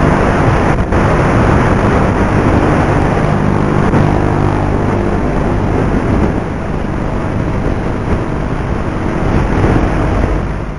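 Steady loud rush of wind over the onboard FPV camera's microphone, with the faint drone of the Flite Test Versa Wing's electric motor and propeller underneath, as the wing flies.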